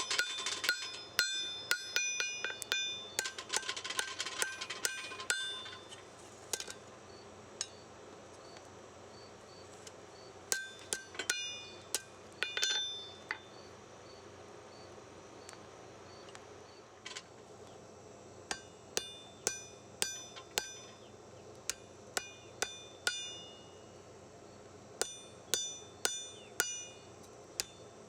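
Blacksmith's hammer striking a hot steel knife blade on an anvil with ringing metallic blows, forging the edge bevel thin and even along the blade. A fast run of blows comes in the first five seconds or so, then scattered strikes in short groups with pauses between.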